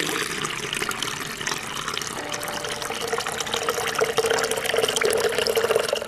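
Water poured steadily from a plastic jug into a fountain basin filled with pebbles, splashing and filling. The pour grows louder toward the end, then stops suddenly.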